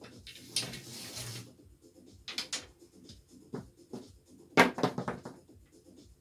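Dice pushed across a felt craps table with a wooden stick, a few light clicks, then a pair of thrown dice clattering and bouncing off the table's end wall. The clatter comes about four and a half seconds in and is the loudest moment.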